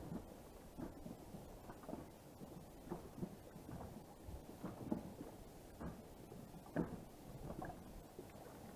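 Small waves lapping and slapping irregularly against the hull of an inflatable boat, in soft uneven knocks, a little louder twice in the middle.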